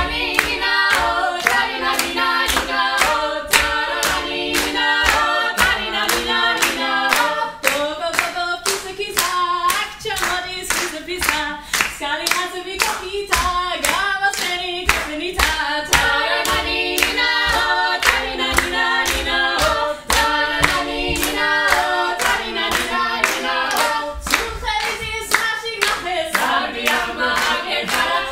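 A small mixed group of voices singing a Georgian song together in parts, with steady rhythmic hand clapping, about two to three claps a second.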